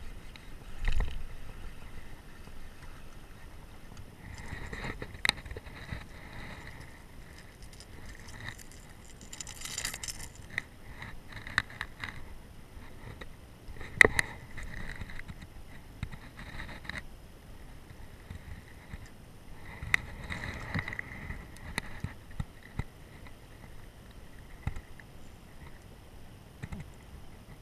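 Scattered clicks, knocks and scraping from rod, reel and handling as a bass is reeled in and lifted into a bass boat. The sharpest click comes about halfway through, with short rattling bursts before and after it.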